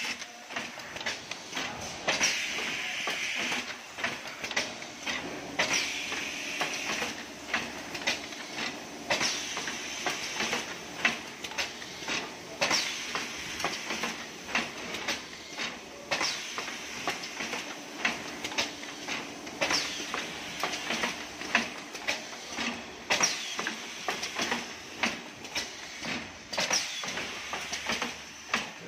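Fully automatic plastic blister edge-folding machine running, with constant clicking and clacking of its moving parts. Hisses of air come from its pneumatic cylinders every few seconds.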